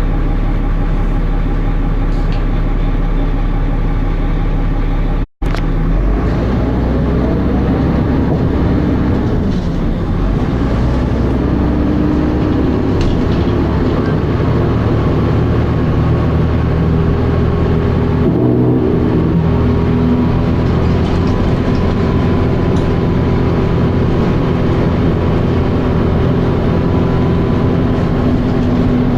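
Dennis Arrow bus heard on board, its engine running under way and revving up between about six and ten seconds in, then running steadily, with a thin whine in the second half. The sound cuts out for a split second about five seconds in.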